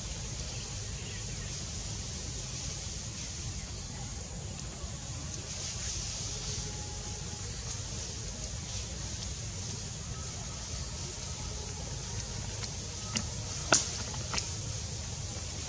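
Steady outdoor background hiss with a low rumble underneath, broken near the end by three sharp clicks, the second the loudest.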